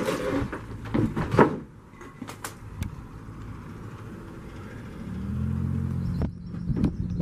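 Footsteps and scuffs on a debris-strewn floor, with a few loud crunches in the first second and a half, then a low steady hum for about a second near the end that cuts off suddenly.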